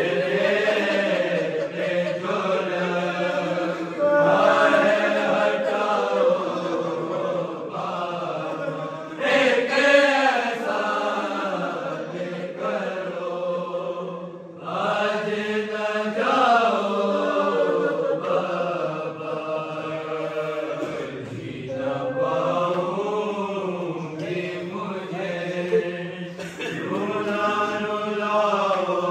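Men's voices chanting an Urdu noha, a mournful Shia lament, unaccompanied, in long sung phrases that rise and fall.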